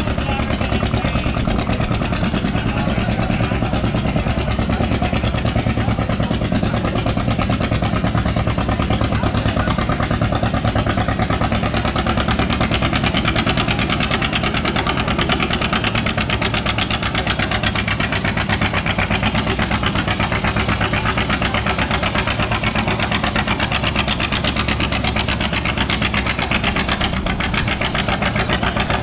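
Antique farm tractor engine running steadily, its evenly spaced firing pulses holding one pace throughout.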